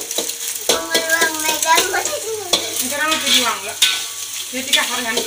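Food frying and sizzling in a wok as it is stirred, with scrapes and taps of the utensil against the pan. A voice sounds over it several times.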